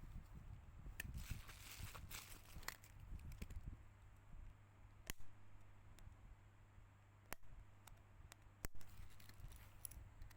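Faint handling sounds from a smartphone being worked on: light scraping in the first few seconds, then a handful of sharp isolated clicks of small parts or tools, over a steady low hum.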